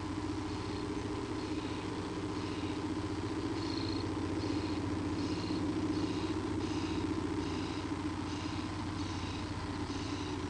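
A pet purring: a steady low rumble, with short high-pitched breath noises recurring about every three-quarters of a second. No sneeze stands out.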